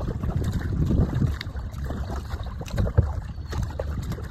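Wind rumbling on the microphone while water laps and splashes against a plastic kayak's hull as it moves along, with scattered light knocks.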